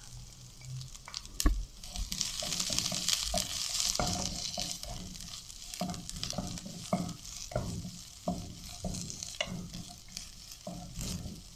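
Shredded cabbage and sliced onion sizzling in oil in a non-stick wok, stirred with a wooden spatula that knocks and scrapes against the pan at irregular moments. The sizzle is strongest a few seconds in.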